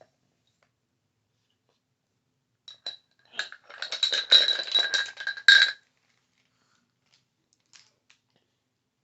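Makeup brushes clinking and rattling against a hard container, with a ringing tone, for about three seconds, starting about three seconds in.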